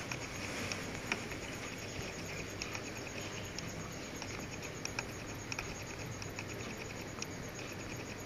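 Steady background hiss with faint, irregular light clicks: fingertip taps and swipes on a smartphone's glass touchscreen.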